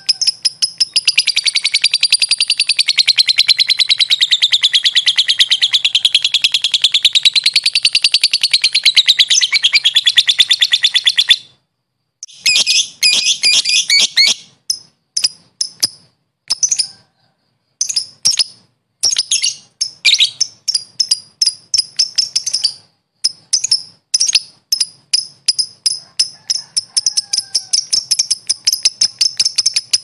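Lovebird giving a long 'ngekek' chatter, a fast unbroken stream of high notes wavering up and down in pitch for about ten seconds. It cuts off suddenly about eleven seconds in, then comes back as shorter bursts of chattering with brief gaps between them.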